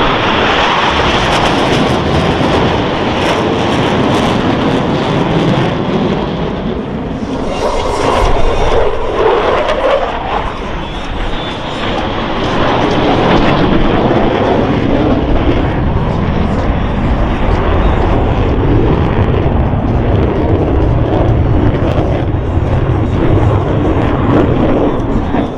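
Boeing F/A-18E/F Super Hornet jets flying overhead: loud, continuous jet roar that swells about eight seconds in and again from about thirteen seconds on.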